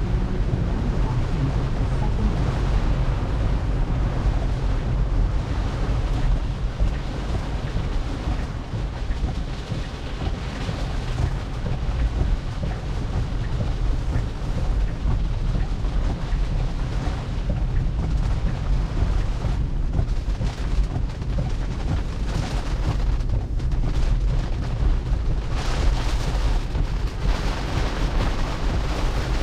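Heavy rain on a car, with wet road noise, heard from inside the cabin: a steady, dense rushing that never lets up.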